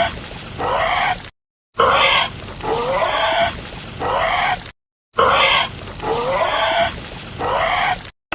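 A recorded animal call played three times over, the same clip each time: about three seconds of several rough calls, some gliding upward in pitch, each followed by a brief silence.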